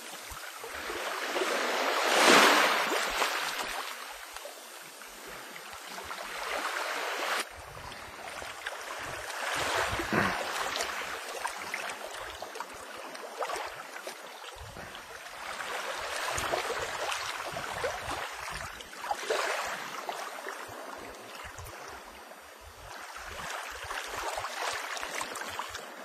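Sea waves washing onto a beach, swelling and falling away every few seconds, loudest about two seconds in.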